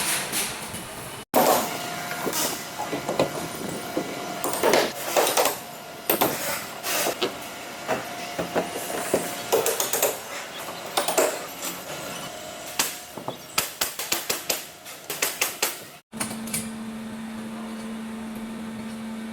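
Irregular metal clanks, knocks and rattles, many in quick runs, over a faint steady tone; after an abrupt cut near the end, a steady low hum.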